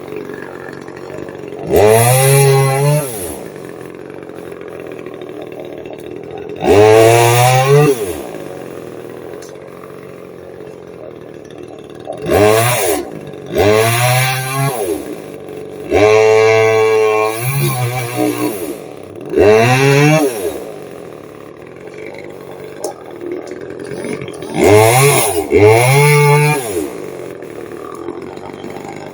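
Chainsaw engine idling and revved eight times in short bursts. Each rev climbs quickly in pitch and drops back to idle.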